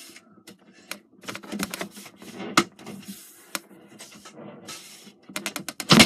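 Irregular light clicks and knocks of hands fumbling with a countertop dishwasher's door and latch, with a quick run of clicks near the end.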